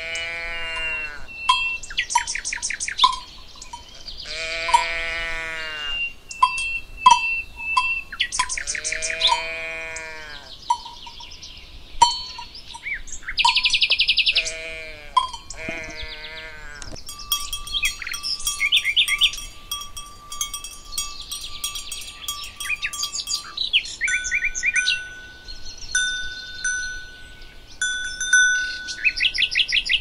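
Cows mooing in several long calls over the first half, against small birds singing and the steady clink of cowbells. Birdsong grows denser in the second half.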